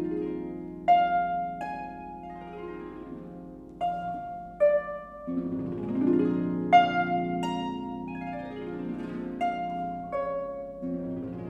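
Concert pedal harp played solo: single plucked notes in the treble ring and fade one after another over sustained, ringing bass notes.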